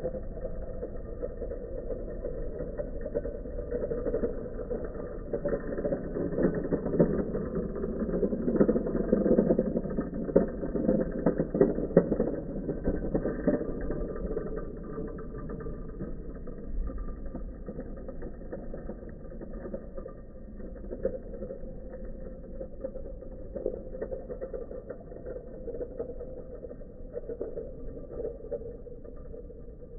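Three-wheeled scooter's wheels rolling over rough asphalt, a steady grainy rumble that swells about a third of the way in and then eases off.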